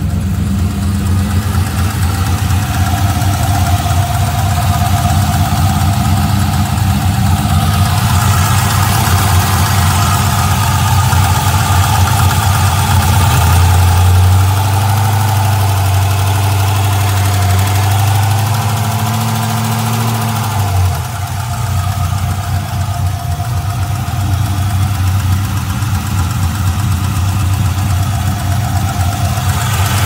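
LS1 5.7-litre V8 idling with a ticking, knocking noise in its running. The owner cannot tell whether it is a lifter tick or a spun bearing.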